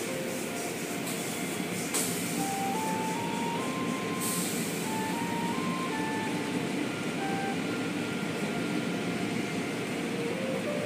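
Automatic car wash heard from inside the car: spinning cloth brushes and water spray scrubbing over the windshield make a steady rushing noise, with a sharp click about two seconds in and a brief burst of hiss about four seconds in. A faint melody of single notes plays under it.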